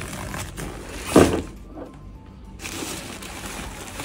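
Background music over the crinkle and rustle of a woven plastic shipping sack being pulled open by hand, with one sharp tearing sound about a second in.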